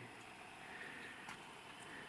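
Quiet outdoor ambience: a faint steady hiss, with one soft click a little past a second in.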